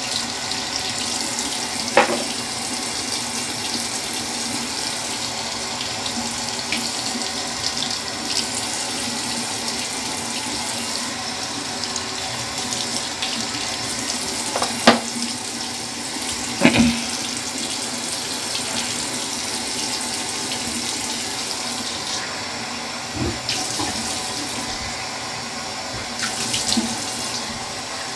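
Bathroom sink tap running steadily while shaving lather is rinsed off the face, with a few brief splashes or knocks, the loudest about 15 and 17 seconds in.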